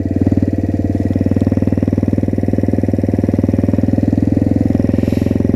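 Small single-cylinder engine of a Motrac M5 minibike running steadily, with a rapid, even putter.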